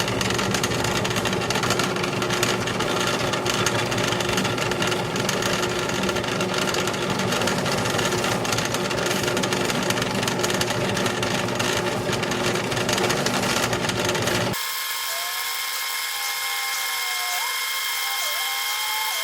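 Drill press running and boring a row of shelf-pin holes in a spice-rack side board, a steady, dense power-tool noise. About 14 seconds in, the low part of the sound drops out suddenly, leaving a thinner, higher steady whine.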